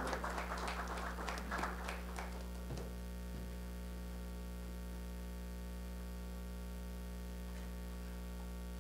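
Applause from a small group dying away about two seconds in, leaving a steady electrical mains hum with a couple of faint knocks.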